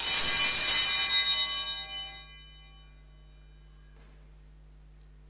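Altar bells rung at the elevation of the chalice after the consecration: one bright, high ringing that starts suddenly and fades away within about three seconds.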